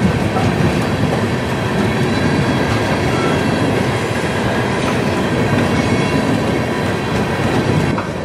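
Loaded covered hopper cars of a freight train rolling past, their steel wheels running on the rails in a steady rumble.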